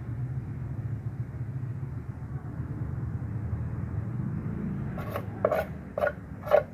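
Cats eating from food bowls: a steady low rubbing, crunching noise, then four short sharp sounds about half a second apart near the end, the last the loudest.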